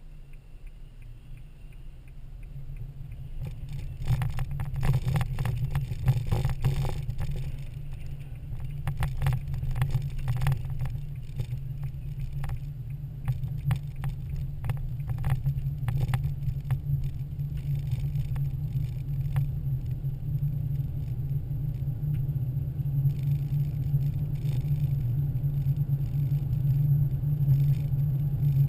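Inside a car's cabin: engine and tyre noise, a steady low rumble that grows louder about four seconds in as the car pulls away from a stop and keeps driving. For a stretch after it gets going, scattered sharp clicks and ticks sound over the rumble.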